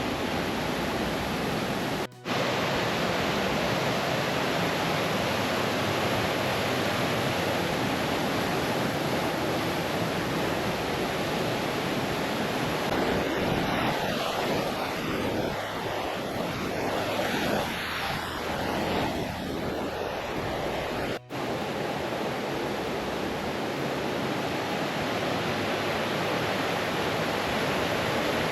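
Steady rushing of a river tumbling down a run of small falls. The sound cuts out for an instant twice, about two seconds in and again near twenty-one seconds.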